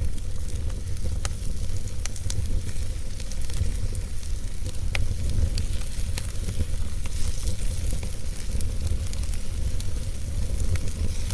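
Fire in a fireplace crackling, with irregular sharp pops over a steady low rumble.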